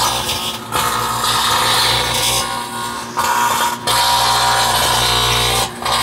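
Microwave oven running with its transformer humming while the EL34 vacuum tube inside arcs, a loud harsh buzzing crackle that cuts out briefly three times, about half a second in, near four seconds and near the end.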